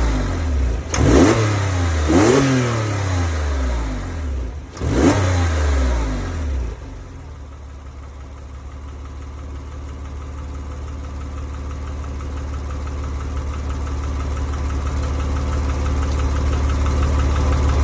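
Porsche 997.1 911's M97 flat-six blipped three times, each rev climbing sharply and falling back, then settling about a third of the way in to a steady idle that grows gradually louder. It is a noise the owner suspects may be bore scoring.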